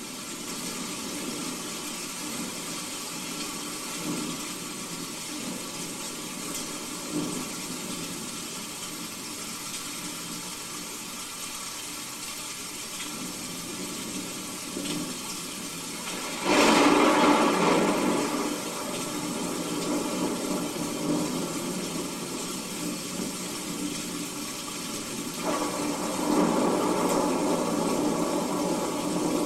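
Recorded thunderstorm played from a CD: a steady hiss of rain, a sudden loud crash of thunder about sixteen seconds in, and another swell of rumbling thunder near the end.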